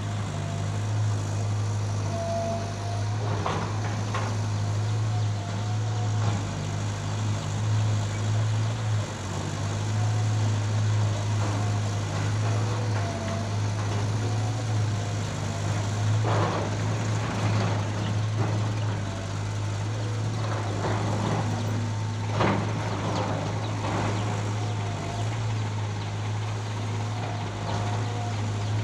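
Excavator's diesel engine running steadily at a constant drone while it loads dirt, with a few short clattering knocks, several of them bunched together in the second half.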